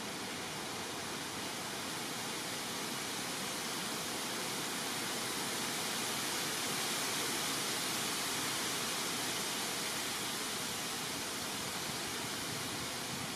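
Steady rushing roar of a large forest fire burning, swelling slightly midway.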